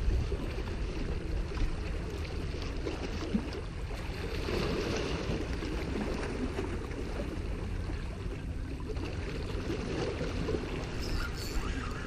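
Small waves washing and splashing against the large riprap rocks at the water's edge, swelling now and then, over a low rumble of wind on the microphone.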